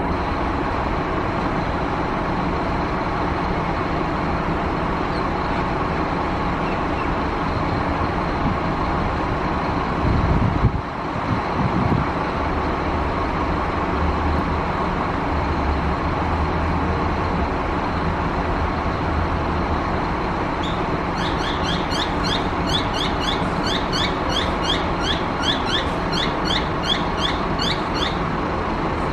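Steady drone of road traffic, with a brief low rumble about ten seconds in. Late on, a rapid run of short, high chirps, about three a second, lasts several seconds.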